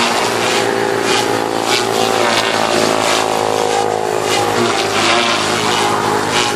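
ALZRC Devil 380 Fast electric RC helicopter in flight: a steady whine from its motor and main rotor made of several pitches at once, rising and falling slightly as it manoeuvres. Recurring whooshes run through it.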